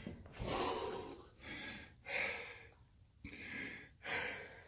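A man breathing hard, gasping in and out about once a second, out of breath right after a fast set of 125 push-ups.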